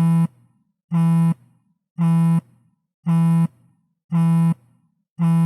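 iPhone vibrating: short, even buzzes just under half a second long, repeating about once a second.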